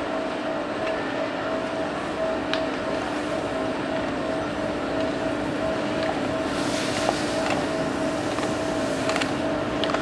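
Steady machine drone: a constant two-tone hum over an even hiss, with a few faint clicks. The hiss turns brighter about two-thirds of the way through.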